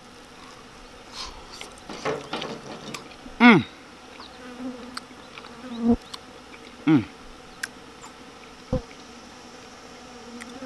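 A man tasting a bite of hot, spicy barbecue chicken, letting out a few short hums that fall in pitch, spaced a couple of seconds apart, with quieter level humming in between. There is one sharp click near the end.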